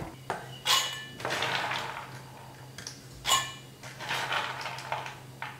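Steel bowl of drained, soaked cowpeas being lifted and tipped, the beans rattling and sliding against the metal with light clinks, in several short bursts over a faint steady low hum.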